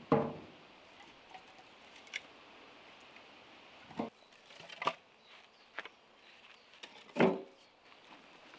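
Firewood logs dropped one at a time into a wheelbarrow tub. There are four sharp knocks, and the loudest ones, right at the start and about seven seconds in, ring briefly.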